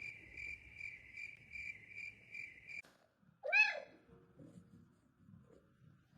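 A high, pulsing chirp, about three pulses a second, that cuts off abruptly near three seconds in, followed by a single short cat meow.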